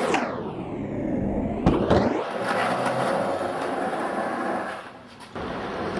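Skateboard wheels rolling on concrete close past, with a sweeping whoosh as the board goes by, then two sharp clacks about two seconds in. Steady rolling noise follows and dips briefly near the end.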